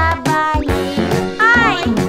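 Upbeat children's cartoon background music with a bouncing bass beat and a wavering, bending note about one and a half seconds in.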